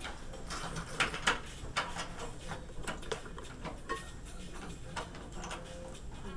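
Irregular light clicks and taps, several louder ones about a second in, from hands and hair tools being handled at a wet mannequin head.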